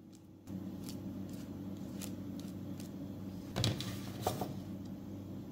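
Light taps and clicks of a silicone pastry brush and handling of a metal baking tray over a steady low hum that starts about half a second in. The tray clatters loudly about three and a half seconds in, with a smaller knock soon after.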